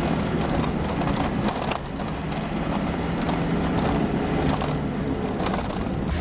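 A car running on the road: a steady low engine hum under a dense rushing of road and wind noise, with a few brief knocks.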